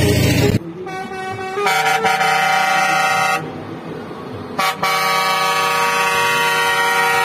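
A truck's engine running close by cuts off about half a second in. Truck air horns follow, sounding a chord of several tones together in long blasts: two in the first half, then one held from about five seconds in.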